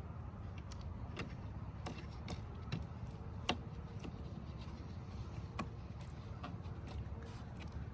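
Scattered light clicks and taps of plastic parts being handled and pushed into place by hand, the loudest about three and a half seconds in and again just before six seconds, over a steady low rumble.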